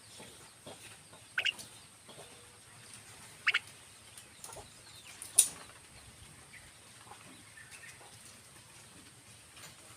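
Short, harsh bird calls: three loud ones about two seconds apart, the third the loudest and shrillest, over faint scattered chirps and ticks.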